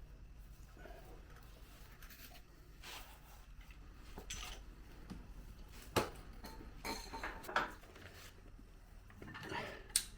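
Scattered light metallic clicks and knocks, the sharpest about six seconds in, as a jack is worked under a Jeep TJ's front axle to take its weight off.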